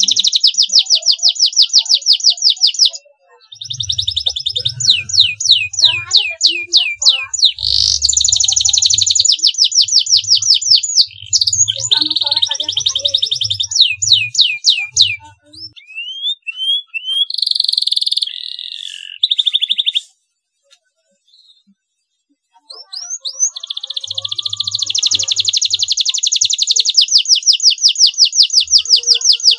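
Domestic canary singing fast trills of repeated high notes, about eight a second. The song comes in short phrases of a few seconds, with brief breaks, and stops for about three seconds two-thirds of the way through before starting again.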